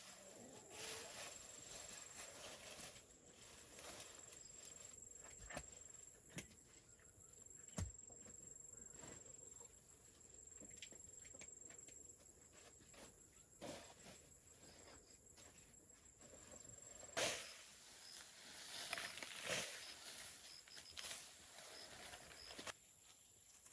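Faint scattered knocks and clicks, the loudest about 17 seconds in, over a steady thin high-pitched tone that stops about the same time.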